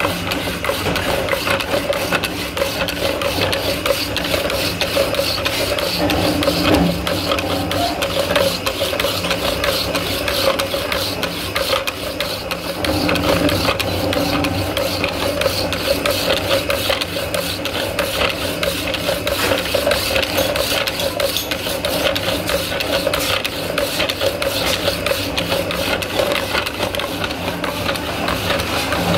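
Power hacksaw machine cutting through an iron round bar: the blade rasps steadily through the metal over the machine's constant running hum.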